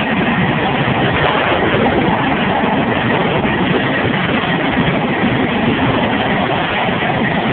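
F-16 fighter jet engine running steadily on the ramp: a loud, even roar with a faint high whine held at one pitch.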